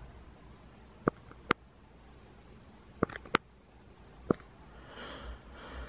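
Handling noise from a small die-cast model airplane turned in the fingers: about five small sharp clicks spread over a few seconds, with a soft rustle near the end.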